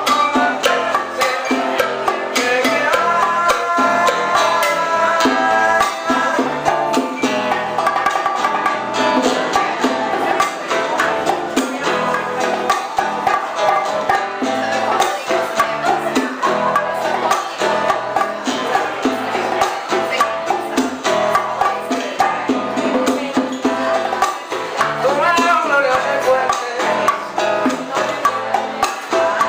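Live old-school Cuban music played by a band, with plucked strings over a steady percussion rhythm.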